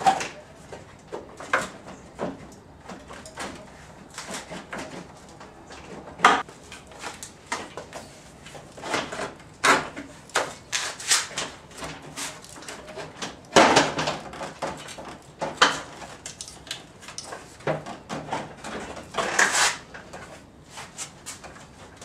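Irregular knocks, clunks and scrapes of plastic and metal parts as a 2004 VW Passat's front lock carrier is pried loose and eased forward a little at a time, with several louder knocks among many lighter ones.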